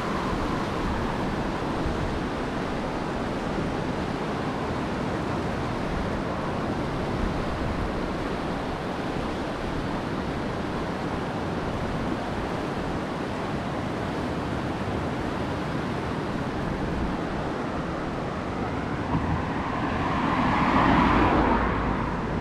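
Whitewater of the Langinkoski rapid on the Kymi river, rushing and churning steadily. Near the end a louder rush swells up and fades over about two seconds.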